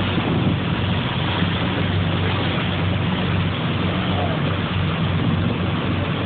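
A fishing boat's engine running steadily, a low even drone under a hiss of wind and water.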